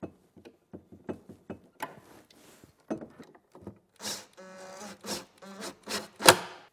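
Makita cordless drill driving pocket-hole screws into pine boards: short spurts of the drill running, with one longer whining run about four and a half seconds in, among many sharp wooden clicks and knocks.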